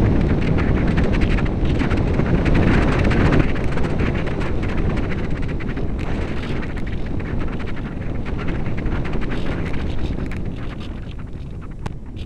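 Airflow rushing over the onboard camera of a Radian RC glider flying low on its landing approach: a loud wind-noise rumble, heaviest for the first three seconds or so, then easing off gradually.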